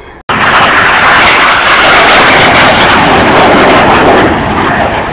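Red Arrows BAE Hawk jet trainers flying by low, a loud jet roar that cuts in abruptly about a quarter of a second in and eases off a little near the end.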